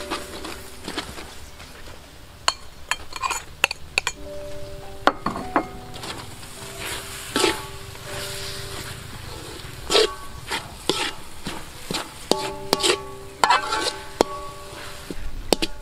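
Metal spoon stirring and scraping a sticky mixture of grated coconut and sugar syrup in a metal pan, with irregular clinks and scrapes against the metal. Soft background music with held notes plays underneath.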